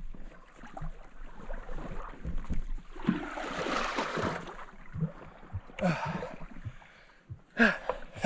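A small boat being worked into a muddy riverbank: water splashing and irregular knocks on the hull, with a longer swash of water about three seconds in. A couple of short grunts of effort near the end.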